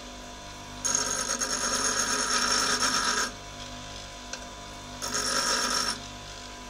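Rexon bench grinder running with a steady hum while a parting-off tool is pressed to the wheel twice to grind its front clearance. The grinding hiss lasts from about one second to three seconds in, then comes again briefly near five seconds.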